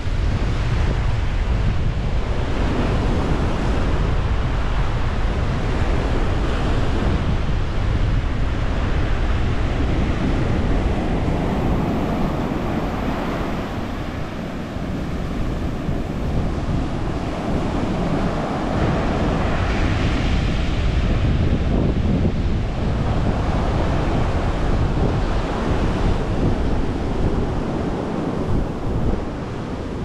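Sea surf washing on the shore, with wind buffeting the microphone as a steady low rumble; the wash of the waves swells and fades every few seconds.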